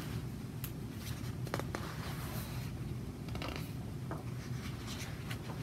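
Pages of a large picture book being handled and turned: soft paper rustles and a few light taps over a low steady room hum.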